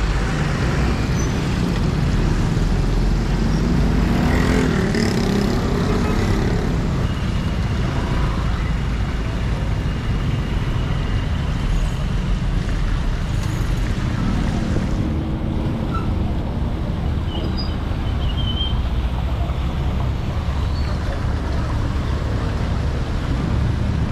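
Street traffic passing on a rain-wet road: cars and motorbikes running by, their engines and tyres on wet asphalt making a steady rumble and hiss.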